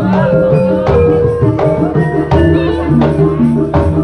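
Live Javanese gamelan music playing a gending: held metal-keyed notes stepping in a melody, over regular drum strokes.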